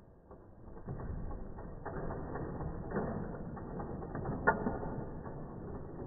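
Plastic toy construction vehicles pushed in a line along a wooden tabletop: a continuous grinding rattle of plastic wheels and parts scraping over the wood, with a sharp click about four and a half seconds in.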